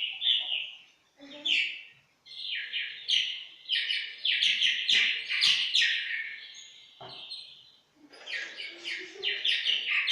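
Swallow twittering: fast runs of short, high chirps, broken by brief pauses about a second in and again around seven to eight seconds in.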